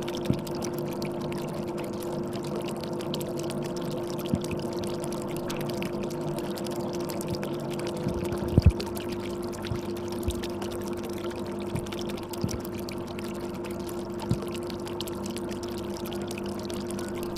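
Aquarium water pouring and bubbling steadily over a constant low hum from the pump, with a few soft knocks of bubbles or water, the loudest about eight and a half seconds in.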